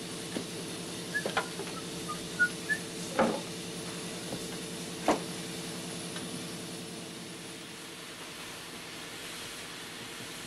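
Sharp metal clanks from a steam locomotive's butterfly firehole doors being worked, about six in the first five seconds, over a steady mechanical hum. A few short high chirps sound in the first three seconds.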